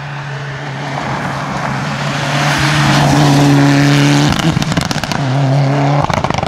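Mitsubishi Lancer Evo IX rally car's turbocharged four-cylinder engine held at high revs as the car approaches and passes at speed, growing louder to a peak. About four seconds in the engine note breaks off with a brief rapid crackling before picking up again, and a second burst of crackling comes near the end as the car pulls away.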